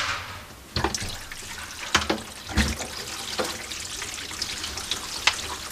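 Water running down through a kitchen sink's white PVC drain pipes and trap: a steady rush of water broken by a few irregular sharp knocks or plops.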